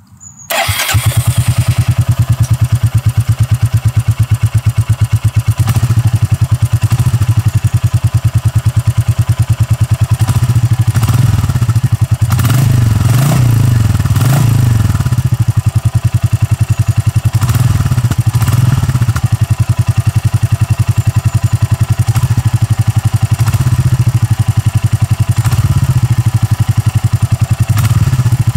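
Royal Enfield Classic 350's single-cylinder engine running at idle through its stock exhaust, fitted with the original air filter: a steady, fast, even thumping beat that cuts in just under a second in.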